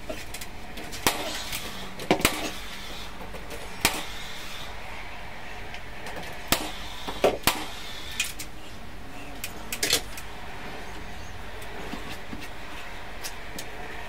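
Sharp knocks and clicks, about eight of them at irregular intervals over the first ten seconds, some in quick pairs, as a length of coving is pressed into place and fixed at the ceiling.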